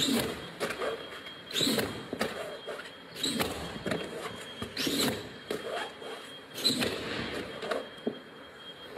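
A large rug shaken out of a window, flapping with a whoosh and snap at each stroke, about every second and a half.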